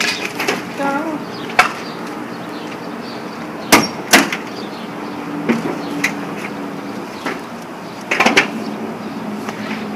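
Scattered sharp knocks and clunks from a Jeep Wrangler's doors and body as boys move in and around it, the loudest a pair about four seconds in and another pair about eight seconds in, over a low steady hum.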